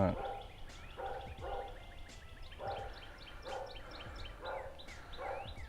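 An animal calling about six times in short, separate calls, with small birds chirping faintly behind.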